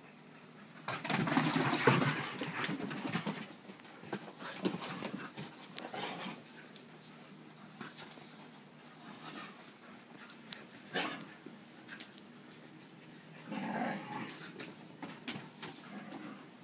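Azawakh, Saluki and Xolo dogs play-fighting, with bursts of growling. The longest and loudest burst comes about a second in, with shorter ones through the middle and another cluster near the end.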